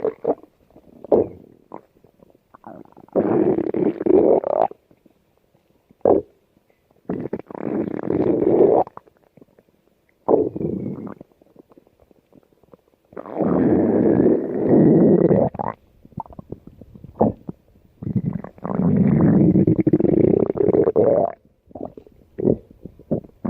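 Stomach growling: about five long gurgling rumbles of one to two and a half seconds each, with short pops and gurgles in the quiet gaps between them.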